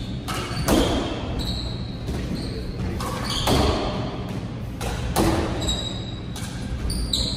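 Squash ball being struck by racquets and slapping off the court walls during a doubles rally: sharp knocks about every half second to a second and a half, each ringing briefly in the court, with short high squeaks from shoes on the hardwood floor between them.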